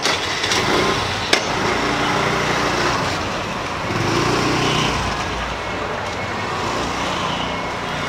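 Motor scooter engine running as the scooter moves off, over steady street noise, with one sharp click about a second in.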